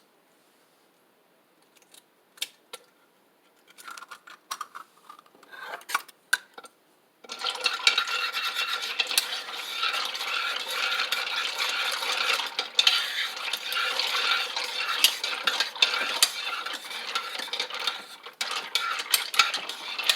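A metal utensil taps a few times against a bowl. Then, about seven seconds in, it starts a fast, continuous stirring or beating, scraping and clinking against the bowl.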